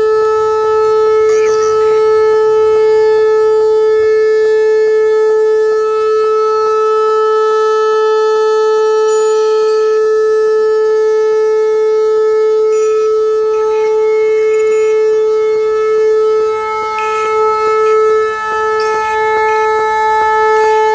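Whelen outdoor warning siren sounding a steady 435 Hz tone, held at one pitch. Its loudness wavers a little in the last few seconds.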